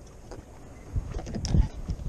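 A small jack crevalle grunting as it is unhooked: a few short, low grunts, about a second in and again around a second and a half.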